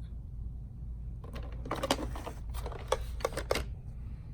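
Clicks and rattles of hard plastic parts and packaging being handled, in a cluster starting about a second in and lasting some two seconds.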